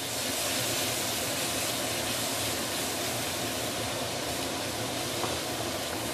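Onion, garlic and fermented soya bean paste sizzling in oil in a stainless steel wok over low heat as they are stirred with a wooden spatula: a steady hiss.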